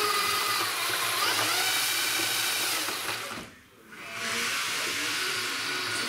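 Metabo RW 18 LTX 120 18-volt cordless mixer running with its spiral paddle churning liquid in a bucket. The motor's whine shifts in pitch as the speed changes, cuts out a little past halfway and starts up again about half a second later.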